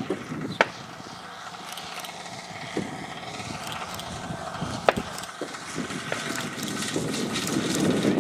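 Radio-controlled model warbird coming in to land with its engine throttled back: a faint steady drone that grows louder near the end as the model passes low over the grass. Two sharp clicks cut through, about half a second and five seconds in.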